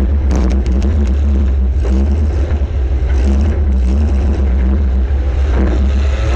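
Welded compact demolition-derby car's engine running hard, with a heavy low rumble. A quick run of sharp clicks or knocks comes about half a second in.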